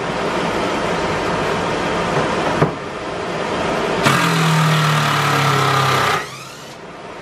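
A steady rushing noise, then about four seconds in a DeWalt 20-volt cordless drill runs at a steady pitch for about two seconds, driving a screw into wood, and stops.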